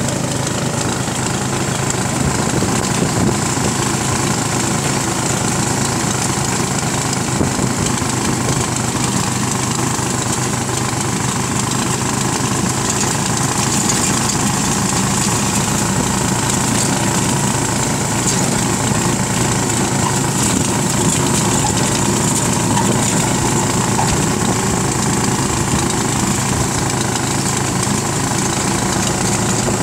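Motorcycle engine running at a steady cruise, with a steady rush of wind and road noise.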